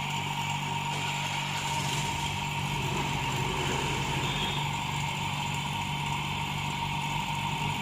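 A small motor-driven machine running steadily: a constant hum with a fast low pulsing and a steady high tone over it.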